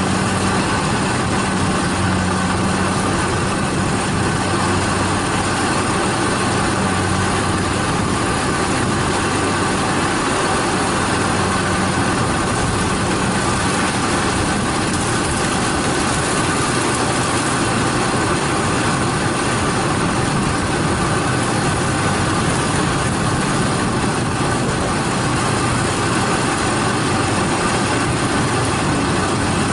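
Two Kubota DC70 combine harvesters running steadily as they cut lodged rice: an unbroken drone of their diesel engines and harvesting machinery, with a low hum that eases about halfway through.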